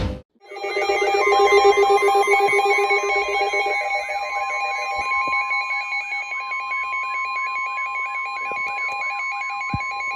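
NOAA Weather Radio 1050 Hz warning alarm tone: one steady pitch starting about a second in and held for about nine seconds, over a warbling, repeating electronic tone pattern. The tone signals that a tornado warning is about to be read.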